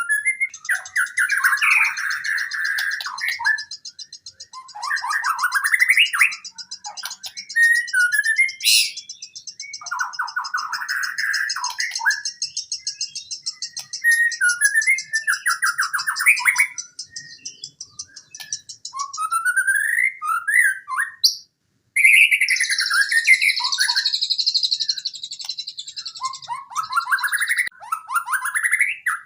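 White-rumped shama singing a long run of varied whistled phrases and mimicked calls, one after another. A fast, even, high-pitched trill sounds behind the song for most of the time, breaking off briefly about two-thirds of the way through before resuming.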